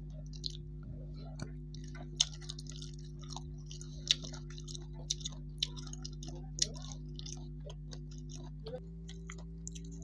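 A person chewing food with the mouth open: irregular wet smacks and clicks, a few of them sharper. A steady low hum runs underneath and shifts slightly in pitch near the end.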